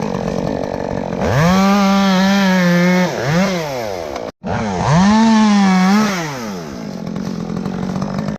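Chainsaw idling and twice revved up to full throttle for about two seconds each, the pitch rising, holding steady, then falling back to idle.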